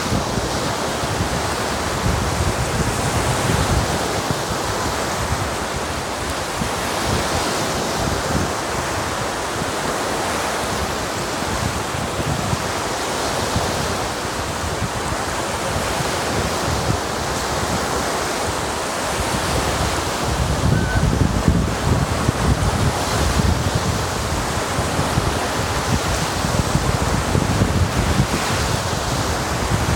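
Small freshwater lake waves breaking and washing up onto a sandy shore in a steady surf, with wind buffeting the microphone, gusting harder about two-thirds of the way through.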